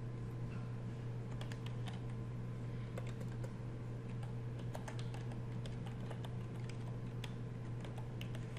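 Computer keyboard being typed on: irregular key clicks as a short line of text is entered, over a steady low hum.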